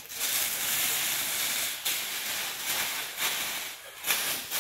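Large plastic bag rustling as it is dragged up and off a tall floor-standing speaker, a long continuous rush for the first couple of seconds, then several shorter swells of rustling.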